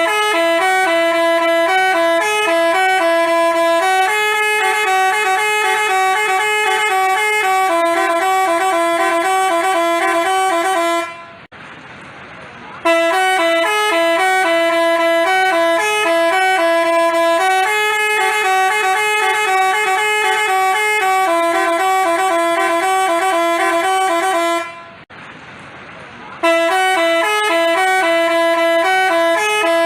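Basuri-type telolet bus horn playing a stepped multi-note tune. The tune lasts about eleven seconds, stops twice for a moment of hiss, and starts over each time.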